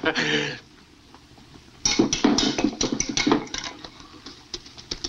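A short groan, then after a pause a run of quick, irregular clinks and knocks of hard objects clattering, thinning out after a couple of seconds.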